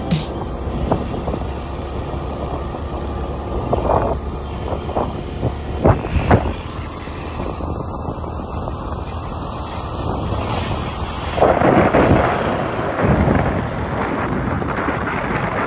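Wind rushing over the microphone of a moving motorcycle, over the steady noise of the bike and its tyres on the road. The wind grows stronger for a couple of seconds about three-quarters of the way through.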